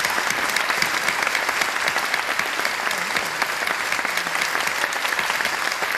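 Audience clapping in steady, dense applause: the cue for the guessing player to come back into the room.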